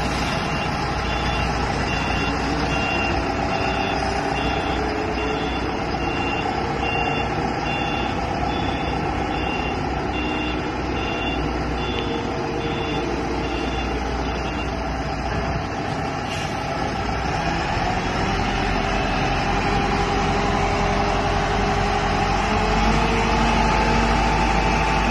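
Heavy vehicle engine running steadily while a back-up alarm beeps about once a second through the first half. In the second half the engine note rises a little.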